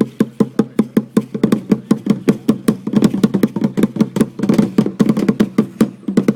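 A drum beaten in a fast, steady rhythm of about five strokes a second, keeping the beat for a prehispanic dance.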